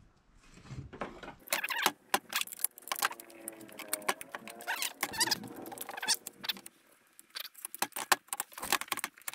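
Irregular clicking and rattling of metal parts as a circular saw fitted with a beam-cutter chain bar is handled and turned over, the loose chain and bar knocking against the saw.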